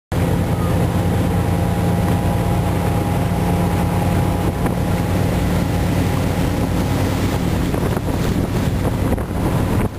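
Doral runabout's motor running steadily at cruising speed, a low even engine drone under the rush of wind on the microphone and water against the hull.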